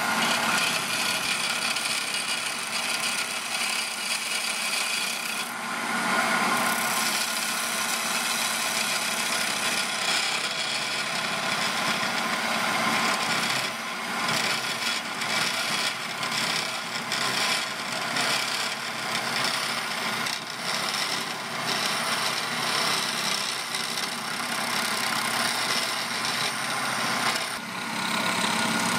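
Wood lathe running while a hand-held twist drill bit bores into the centre of the spinning wooden vase, a continuous scraping cut over a steady machine hum.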